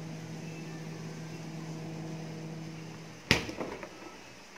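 Refrigerator door shut with a thud a little over three seconds in, followed by a few light clicks. Under it runs a steady hum, which drops away once the door is closed.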